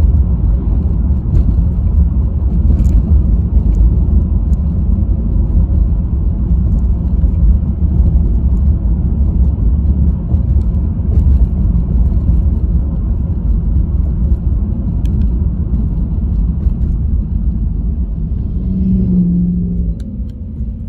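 Road noise inside a moving car: a steady low rumble of tyres and engine that eases off near the end as the car slows for a stop sign.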